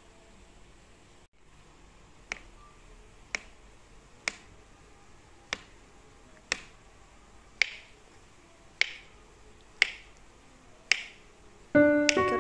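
Kitchen knife slicing a banana, the blade tapping through onto a plastic cutting board about once a second, nine times. Piano music comes in near the end.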